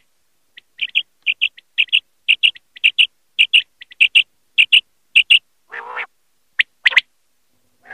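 Common quail calling: a fast run of short, sharp, high-pitched notes, mostly in pairs, repeating about twice a second. About six seconds in, a lower, rougher call is heard, followed by two sharp single notes.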